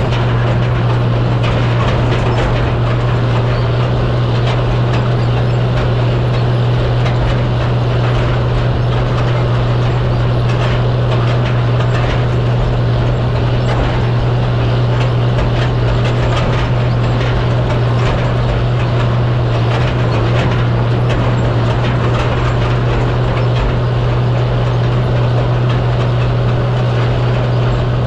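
Farm tractor engine running steadily at a constant speed as the tractor pulls across a tilled field, one even low drone with a rattly, noisy layer over it.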